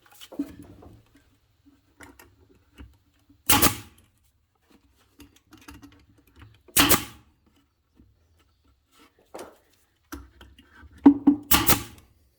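A brad nailer firing twice, a few seconds apart, driving 1-inch brad nails through a glued bracing strip into the wood. Near the end comes a quick cluster of sharper knocks.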